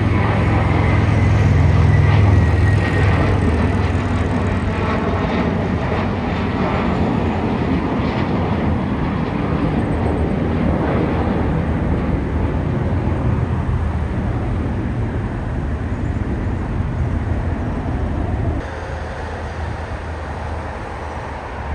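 Twin-engine jet airliner climbing out at takeoff thrust: a loud engine rumble that is loudest about two seconds in and then slowly fades as the plane climbs away. Near the end the sound drops suddenly to a quieter, distant airport hum.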